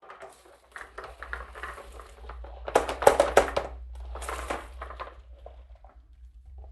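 Marbles and small toys clattering down a HABA marble-run slope: a quick run of clicks, taps and rattles. It is loudest about three seconds in and thins to a few scattered ticks near the end.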